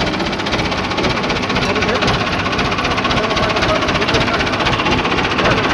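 Massey Ferguson 165 tractor engine idling close by, with a steady, rapid clatter.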